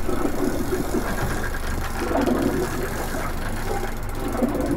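Suzuki outboard motor idling steadily close by.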